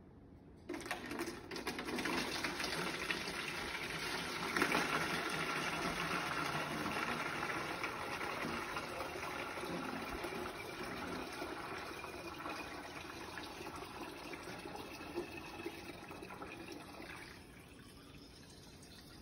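Epsom salt and distilled water solution pouring from a stainless steel stock pot through a funnel into a plastic gallon jug. It starts just after the beginning, runs steadily, then thins and stops a couple of seconds before the end.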